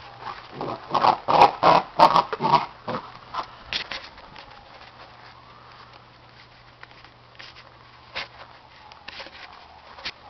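Basset hound making a quick run of about six short, loud vocal sounds in the first few seconds, followed by scattered light taps and clicks.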